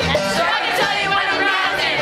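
Live song performance: a man's voice singing over instrumental accompaniment.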